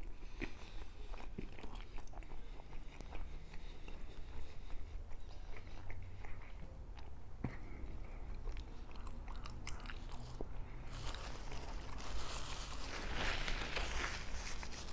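Close-up biting and chewing of a chilaquiles torta, a bolillo roll filled with salsa-soaked tortilla chips, with small crunches and wet mouth clicks. The chewing gets louder in the last few seconds.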